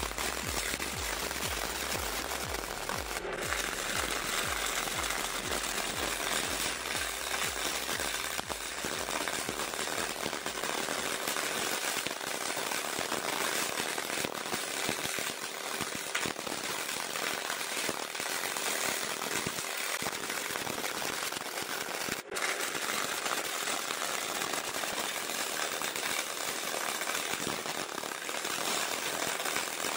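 CO2 semi-automatic (MAG) welding arc crackling steadily as the wire feeds into the weld pool on thick steel plate.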